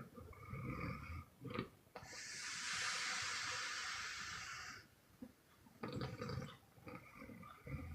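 A sleeping woman snoring: rough, low snores, then one long airy puff of breath out lasting almost three seconds, the loudest sound. Another short snore comes about six seconds in and again near the end.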